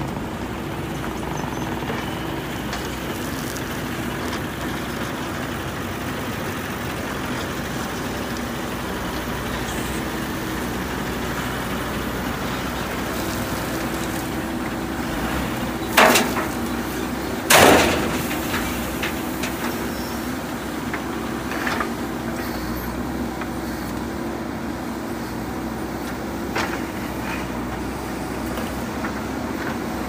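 Diesel engines of a JCB backhoe loader and a tipper truck running steadily. About halfway through come two loud crashes a second and a half apart, as the backhoe bucket drops stone ballast into the tipper's steel body.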